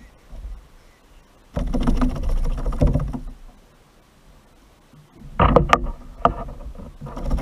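Knocks and rubbing handling noise on a plastic sit-on-top fishing kayak while a freshly caught fish is held and unhooked, in two loud spells: one about a second and a half in, and a second with several sharp knocks from about five seconds in.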